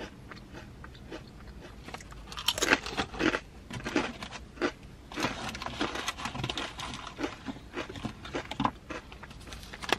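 Crisp waffle potato chips being chewed: a run of crunches and crackles, loudest about three seconds in.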